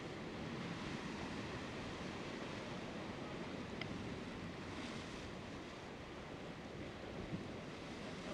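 Ocean surf washing and breaking over the rocks, a steady rushing noise, with a couple of small clicks, one about four seconds in and one near the end.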